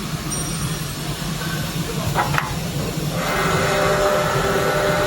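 Plastic sheet extrusion machinery running with a steady hum. From about three seconds in, a steady whine of several tones joins it.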